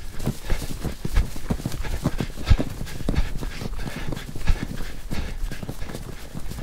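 Clopping footfalls on a hard paved road: a running stream of knocks, several a second, some heavier thumps among them.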